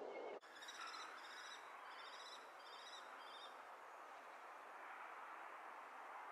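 Young common kestrels calling from the nest box: about six short, high, trilled calls over three seconds, then only faint background hiss.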